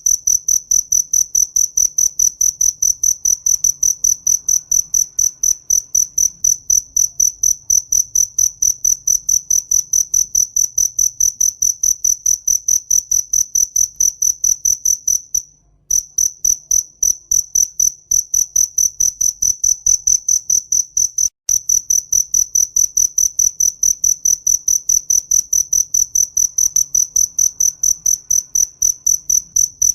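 A cricket chirping steadily: a high, pure note pulsed evenly several times a second, breaking off briefly about halfway through and again shortly after.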